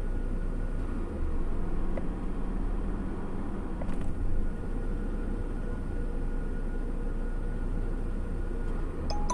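A car engine idling steadily, heard from inside the cabin, with a faint steady hum over the low running sound.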